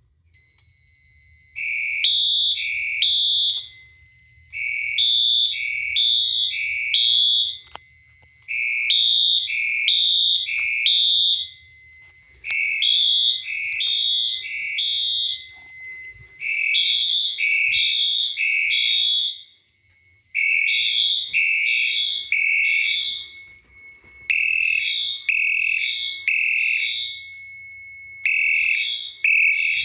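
Fire alarm horns sounding in the temporal-three evacuation pattern: groups of three short blasts repeating about every four seconds, in two pitches slightly out of step, over a fainter steady high tone. They come in about two seconds in, set off by a Bosch D273 smoke detector tripping the system into alarm.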